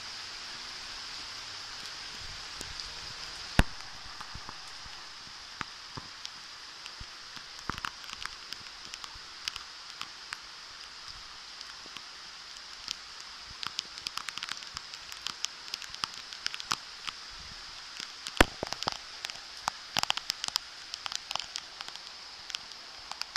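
Steady summer rain hissing, with many close raindrop taps on wet paving stones and leaves that grow thicker from about a third of the way in. Two louder, sharper taps stand out, one a few seconds in and one about three-quarters of the way through.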